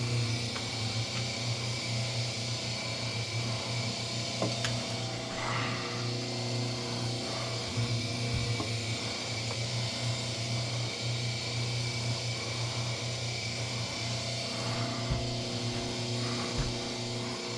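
Electric wire stripping machine running with a steady motor hum as copper wire is fed through its blades, with scattered clicks and rubbing.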